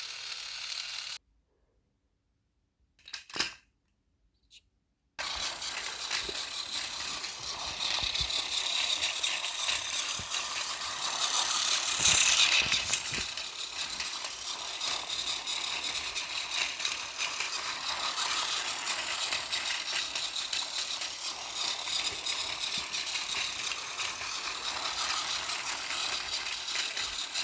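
A sharp click about three seconds in, then from about five seconds a battery-powered toy train's small electric motor and plastic gears run with a continuous, even rattle as the train moves.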